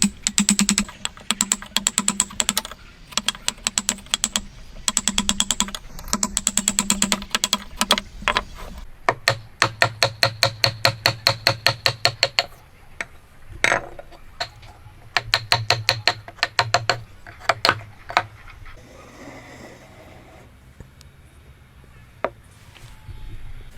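Hammer rapidly tapping a steel chisel into wood: quick runs of sharp, ringing taps, several a second, stopping and starting again. After about eighteen seconds only a few scattered knocks remain.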